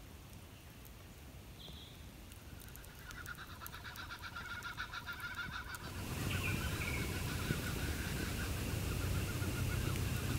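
Bird calls in the bush: a few short high chirps, then a fast, rhythmic chattering call that starts about three seconds in and grows louder. About halfway through, a low steady rumble rises in the background.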